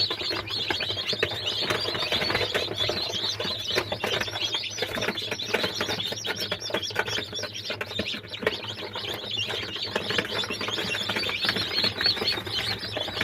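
A brood of newly hatched chicks peeping continuously, many short high chirps overlapping, over a steady low hum.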